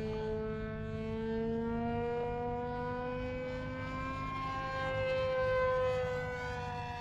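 Uproar RC plane's motor and propeller whining as it flies overhead, the pitch slowly rising, then sliding down as it passes, loudest around five to six seconds in.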